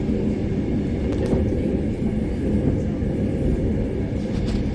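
Mat '64 electric multiple unit running along the track, a steady low rumble heard from inside the carriage, with a couple of faint clicks.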